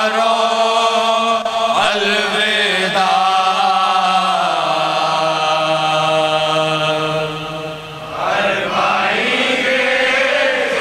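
A noha, a Shia Urdu lament, chanted by a man into a microphone in long held notes. The line breaks off briefly about eight seconds in, and the next line begins.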